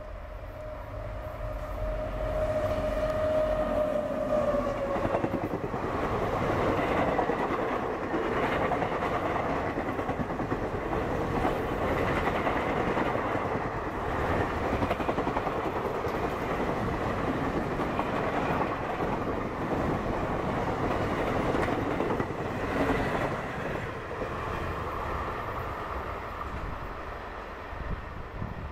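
WAP-7 electric locomotive and its passenger coaches passing at speed. A long steady horn note sounds as the train approaches and fades about five seconds in. Then comes a loud rushing with the clickety-clack of wheels over the rail joints as the coaches go by, dying away near the end as the train recedes.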